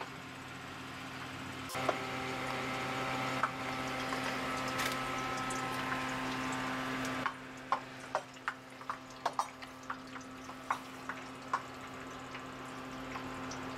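Distilled oil from the waste-oil distiller trickling from a hose into a plastic jerrycan, then falling in irregular drips. A steady low hum runs underneath.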